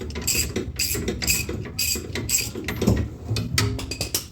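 Hand ratchet wrench being worked back and forth, giving a short burst of clicks on each stroke about twice a second.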